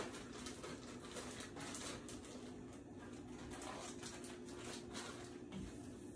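Clear plastic zip-top bag crinkling and rustling in the hands, a run of small irregular crackles, over a steady low hum.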